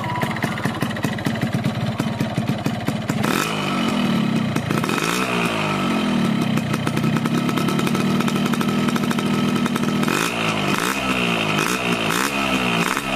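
Cold two-stroke motorcycle engine idling, then revved. About three seconds in the revs rise, it is held at higher revs for a few seconds, and near the end it gets a run of quick throttle blips. The engine note is rough, which the owner puts down to a knock-off aftermarket cylinder block.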